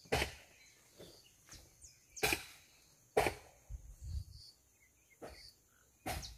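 Wet laundry being handled and shaken out onto a wire clothesline: several sharp flaps and swishes of heavy damp fabric, a second or so apart, the loudest two near the middle.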